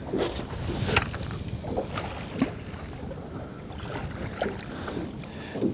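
Wind rumbling on the microphone and water slapping at a small boat's hull, with a few short light knocks and clicks as a fishing rod is worked over the side.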